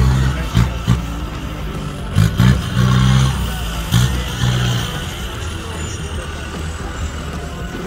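Engine of a lifted Mitsubishi Pajero revving in short bursts as it crawls through a steep rut, with blips about two seconds in and again near three and four seconds, then running steadier and a little quieter.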